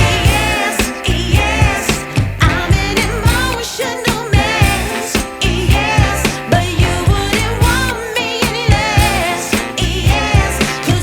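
Background song: a singer over a band with a steady beat.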